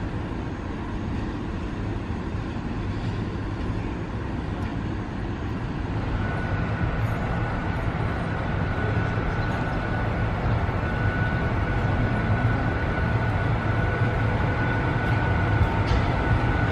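Railway station train noise: passenger coaches rolling slowly past, then a MÁV class 431 (V43-family) electric locomotive running in along the platform. A steady rumble with a low hum throughout, joined about six seconds in by a thin steady high tone, growing a little louder as the locomotive approaches.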